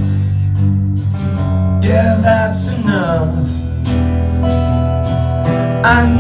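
Live acoustic band music: strummed acoustic guitar over a steady low bass line, with a voice coming in briefly partway through and again near the end.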